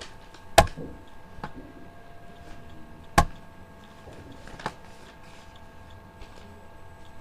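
Two sharp knocks about two and a half seconds apart, with a few lighter ticks, over a faint steady hum.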